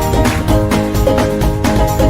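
Upbeat background music with a steady, quick beat.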